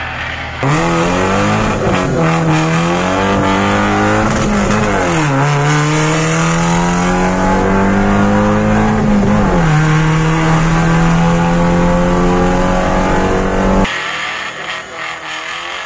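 Car engine under hard acceleration, heard from inside the cabin: the pitch climbs, drops back at three upshifts, then holds steady before cutting off suddenly near the end.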